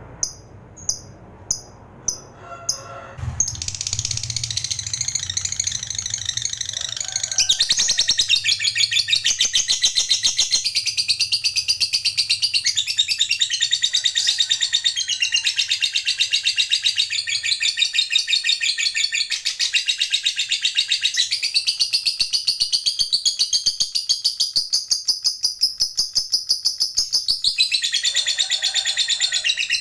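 Lovebird giving a few short chirps about half a second apart, then breaking about three seconds in into a long, unbroken, very fast chattering trill: the long 'ngekek' (ngekek panjang) song prized by lovebird keepers.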